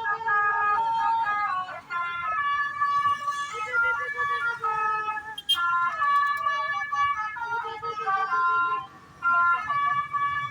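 Bus telolet horn, a set of musical air horns, playing a jingly tune of several tones at once that step from note to note, with short breaks between phrases.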